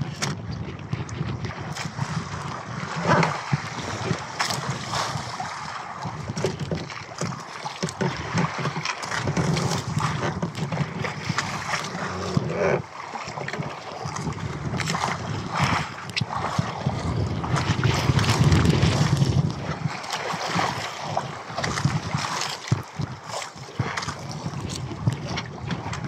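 Wind buffeting the microphone and choppy sea splashing against a small outrigger fishing boat, with scattered knocks and splashes as a hand line is worked over the side.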